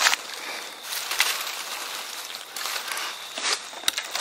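Dry leaf litter and brush rustling and crackling, with several sharp snaps scattered through it.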